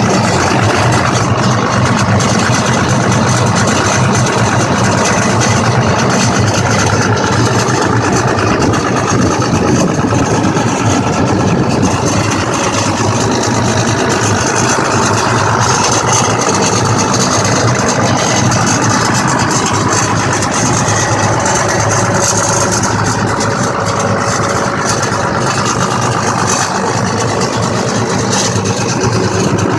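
Vehicle engine running at a steady idle, recorded close up in the open engine bay.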